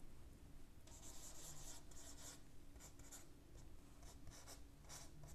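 Marker pen writing on a whiteboard: a quick run of short, faint strokes starting about a second in.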